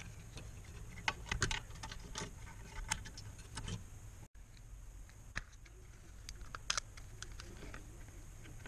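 Light clicks and clatter of small plastic parts as the garage door opener's limit switch assembly is lifted off and taken apart by hand. Most of the clicks come in the first half, with a few scattered ones later.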